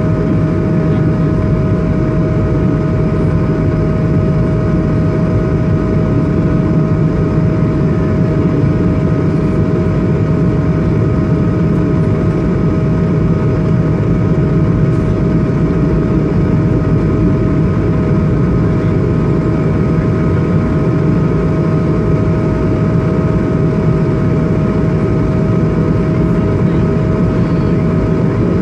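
Cabin noise of an Airbus A220-300 in the climb after takeoff: the steady roar of its Pratt & Whitney PW1500G geared turbofan engines and the airflow, with a steady high tone running over it.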